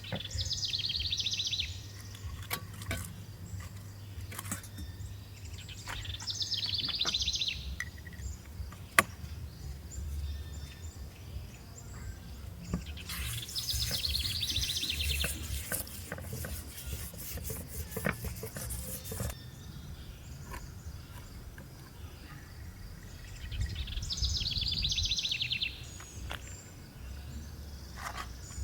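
Outdoor ambience: a rapid trilling call comes in short bursts of one to three seconds, four times, over a faint steady insect hum. Scattered sharp clicks and knocks are heard between the bursts.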